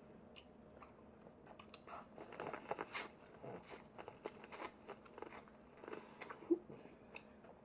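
A person eating close to the microphone: irregular wet biting and chewing clicks with light crunches, busiest in the middle.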